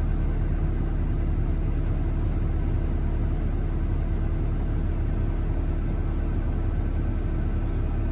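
Excavator diesel engine running steadily, an even low rumble with no revving.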